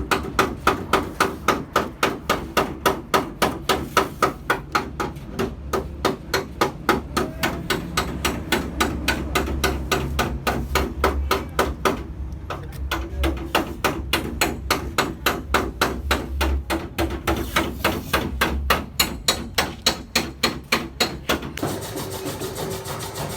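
Rapid, evenly spaced hammer blows, about four or five a second, with a short pause about halfway and a stop shortly before the end.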